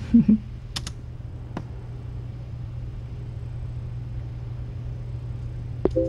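A steady low hum with a few faint short clicks. Near the end comes a click on a laptop keyboard.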